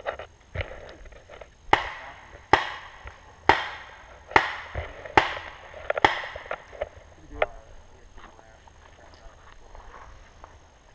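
A run of six sharp pops or knocks, a little under a second apart, each with a short fading tail, with fainter clicks around them.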